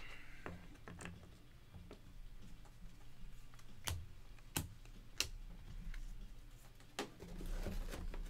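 Trading cards and a hard plastic card holder handled on a tabletop: light rustling and taps, with three sharp clicks in the middle a little over half a second apart and another click followed by rustling near the end.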